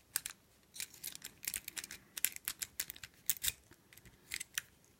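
Irregular small metallic clicks and scrapes of a jiggler key being worked in and out of a small wafer gun lock.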